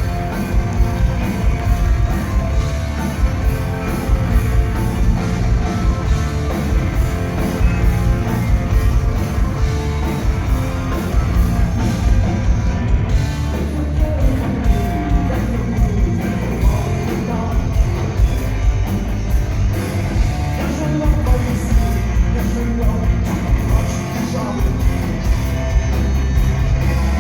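Rock band recording playing loud: heavy drums keep a steady driving beat under electric guitars, with a voice singing over it at times.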